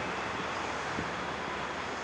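Road traffic: cars driving across a railroad grade crossing, a steady rush mixed with wind on the microphone, with a light thump about a second in.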